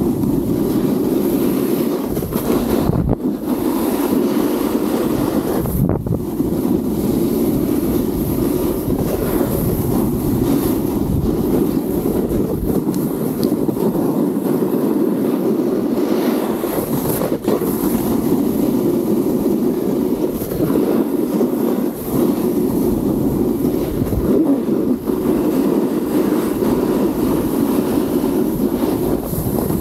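A snowboard carving down groomed snow: the board's edges scrape and hiss steadily across the surface, with now and then a short knock as it hits bumps. Wind rushes over the body-mounted camera's microphone.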